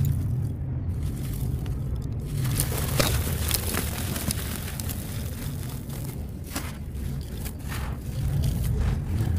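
A hand crushing soft, dusty moulded blocks of red sand: the blocks crumble to powder with gritty crunches and rustles, in a run about three seconds in and again around seven to eight seconds. A steady low rumble runs underneath.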